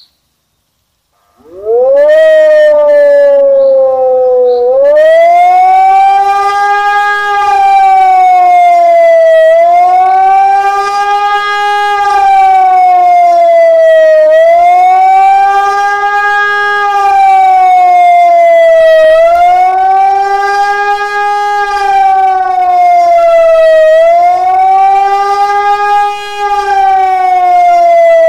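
Civil-defence siren sounding the German 'Warnung' signal during a siren test. It starts up about a second and a half in and climbs in pitch, then its tone rises and falls about once every five seconds.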